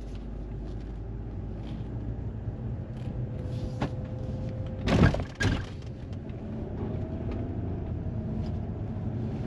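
Audi A3 3.2's VR6 engine and the road rumbling steadily inside the cabin while it is driven slowly, with a faint whine that rises a little. About five seconds in come two loud knocks, half a second apart.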